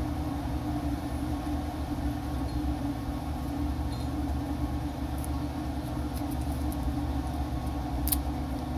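A steady low machine hum with a faint held tone, unchanging throughout. A few faint small clicks, the clearest near the end.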